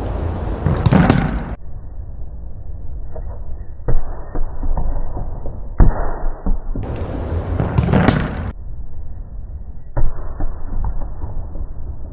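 A football kicked hard against a concrete wall: three sharp thuds a couple of seconds or more apart, and two longer rushing bursts, one at the start and one about seven seconds in, over a steady low rumble.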